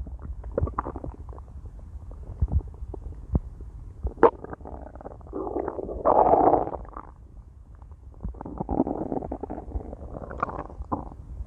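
A person's stomach growling and gurgling: an irregular run of short pops and squelches, with a sharp pop about four seconds in and a louder, longer gurgle about six seconds in.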